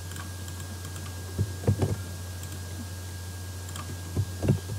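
A few computer keyboard keystrokes and mouse clicks in two small clusters, one about a second and a half in and one near the end, over a steady low hum.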